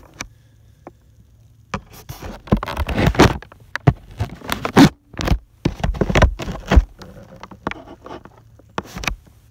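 Scissors cutting at the tape and tabs of a cardboard box, with irregular scraping, rustling and clicking of blades on cardboard.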